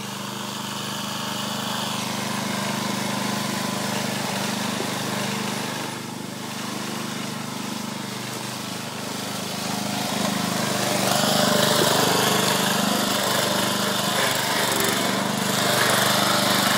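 Lawn mower engine running steadily, growing louder about ten seconds in.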